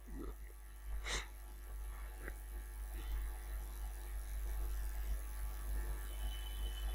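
Low steady electrical hum with a faint buzz, with a few faint short sounds over it, the clearest about a second in.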